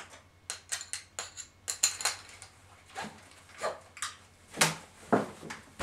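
An irregular run of light clicks and clatters, like small hard objects being handled, with a few duller knocks in the second half.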